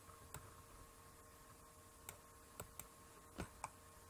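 Faint, irregular clicks of a computer mouse, about six in four seconds, over near-silent room tone.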